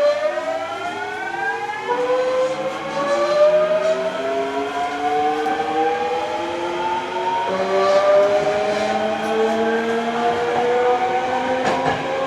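Toshiba GTO-VVVF inverter and traction motors of a Hankyu 8000 series train whining as it accelerates, heard from inside a passenger car. The pitch climbs in stages, with the tones shifting and rising again a few times as the inverter changes mode.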